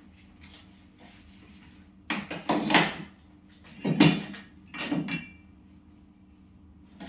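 Knocks, clatter and rubbing from handling and wiping the parts of an electric meat slicer on a shelf, loudest about two to three seconds in, with shorter knocks around four and five seconds in. A faint steady hum runs underneath.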